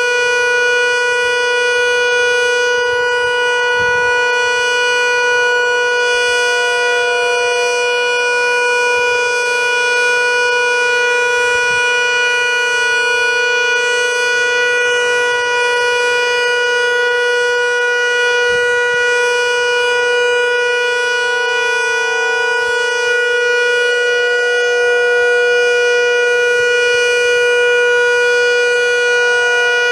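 Federal Signal Model 2 outdoor warning siren sounding the alert signal: one loud, steady tone held at full pitch, with no rise or fall.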